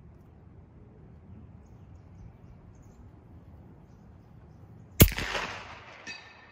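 A single suppressed rifle shot about five seconds in, from a Ruger Precision Magnum rifle fitted with a CGS Group Hekate 338 3D-printed titanium suppressor. The sharp report trails off over about a second, after a stretch of quiet outdoor background.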